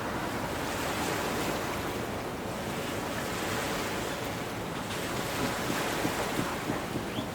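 Harbour water washing against the quay, with wind on the microphone and a few faint knocks near the end.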